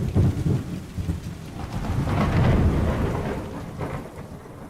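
A thunderclap over falling rain: it breaks suddenly, swells into a low rolling rumble about two seconds in, then fades away.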